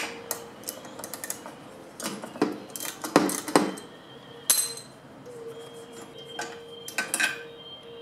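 Metal hand tools clinking and clicking: steel sockets knocking together and a socket wrench working as a spark plug is unscrewed from a small lawn mower engine, with several sharp clinks, some of which ring briefly.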